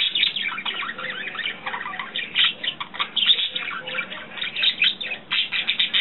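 Pet budgies (budgerigars) chattering and twittering: a continuous, busy run of quick chirps and short warbling notes with no pause.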